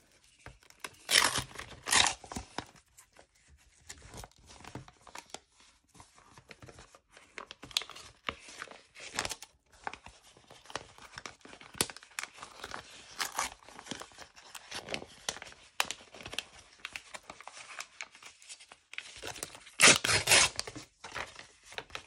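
Brown kraft paper package being torn open and handled by hand: paper rustling and crinkling, with loud tearing bursts about a second in and again near the end.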